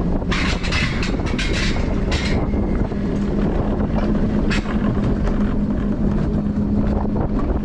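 Wiegand alpine coaster sled running fast down its steel tube rails: a steady rumble from the wheels on the track with a constant hum. Bursts of hiss come in the first couple of seconds, with wind on the microphone.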